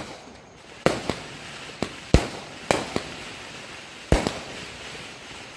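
Aerial fireworks bursting: a string of about eight sharp bangs, some in quick pairs, with a hiss between them.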